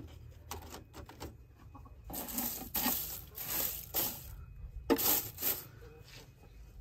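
Hen's eggs clinking lightly against one another as they are set into a wicker basket, and a hand rustling through the dry straw of a nest box, in short bursts.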